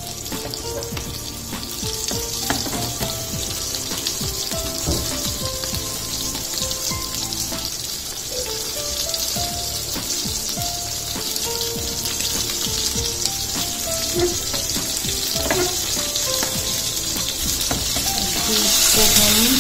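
Rava-and-besan-coated pomfret shallow-frying in hot oil over a medium flame, a steady sizzle that grows louder near the end as a metal spatula goes in under the fish.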